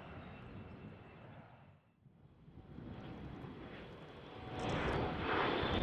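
Jet airliner engines: a steady rushing noise with a high whine, which drops away briefly about two seconds in, then a second jet's noise builds up louder with its own high steady whine near the end.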